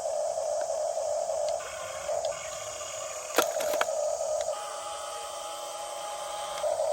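Small electric motors and gearboxes of a toy RC excavator whining, stopping and starting in spurts as different functions are run. A couple of sharp clicks come about three and a half seconds in.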